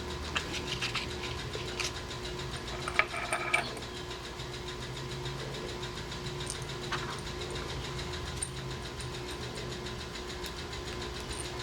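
Clicks and light taps of Kwikset Kevo lock parts being handled and pushed into place, several in the first few seconds and one more around the middle, over a steady low hum.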